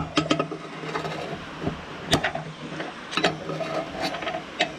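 Metal screwdriver shafts clicking and scraping against the inside of a radiator filler neck in irregular clinks, as two screwdrivers probe for a plastic cap that has dropped into the radiator.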